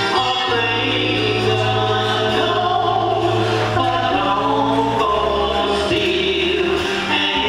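A choir singing in harmony over a held low bass note; the bass shifts to a lower note about five seconds in.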